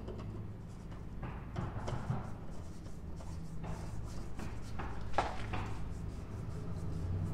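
Oil filter housing being threaded by hand onto a Porsche Cayman engine: soft scraping and rubbing of the threads and the gloved hand, with one sharper click about five seconds in, over a steady low hum.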